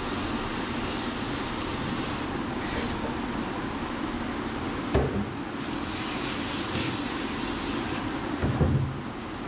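Water spraying steadily from a handheld hose sprayer onto a wet dog and the stainless steel tub, a continuous hiss of spray. Two short low thumps, about halfway and near the end.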